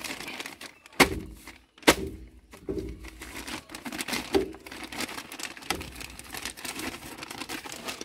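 Workshop handling of metal gearbox parts: two sharp knocks about one and two seconds in, then a run of lighter clicks and knocks.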